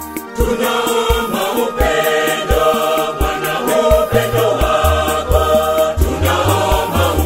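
Women's choir singing a Swahili gospel song over electronic organ and a steady beat. The voices come in about half a second in, after a short instrumental passage with organ bass notes.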